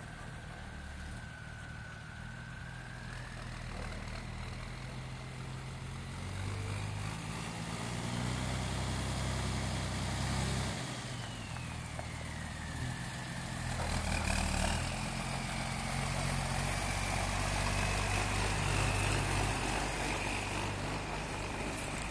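M35A2 deuce-and-a-half army truck's multifuel diesel engine running at low speed as the truck approaches and manoeuvres in, growing louder, with a high whine that rises and falls with engine speed.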